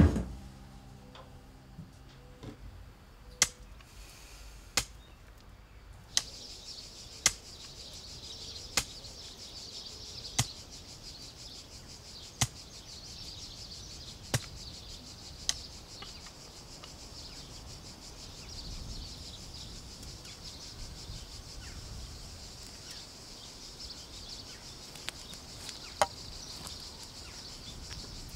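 A hoe chopping into dry, hard soil, one stroke every one and a half to two seconds, stopping about halfway through, with a single stroke near the end. A steady high insect drone runs under it from a few seconds in.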